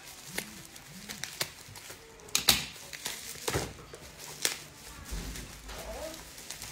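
Scissors snipping and plastic wrap crinkling as a bundle wrapped in black plastic is cut and pulled open by hand, with scattered sharp clicks, the loudest about two and a half seconds in.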